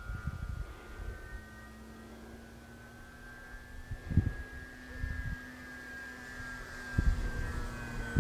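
Radio-controlled Yak 54 model aerobatic plane's engine and propeller droning in flight, a steady high whine whose pitch drifts slightly as the plane moves. Low gusts of wind buffet the microphone, the loudest about four seconds in and again near the end.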